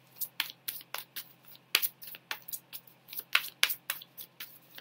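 Tarot cards being shuffled by hand: a run of sharp, irregular clicks and slaps, about three or four a second.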